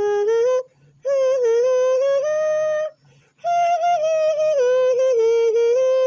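A woman's voice singing a wordless melody in long held notes that step up and down in pitch, in three phrases with two short breaks.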